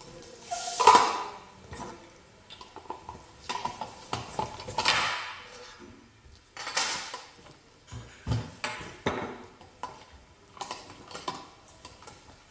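Plastic and metal parts of a hand-crank meat grinder clicking, knocking and scraping together as the grinder is assembled, in a string of separate irregular knocks.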